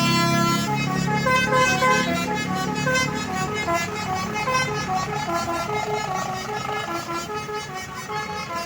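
An Indonesian bus's basuri musical horn playing a melody of quick notes, getting gradually quieter toward the end.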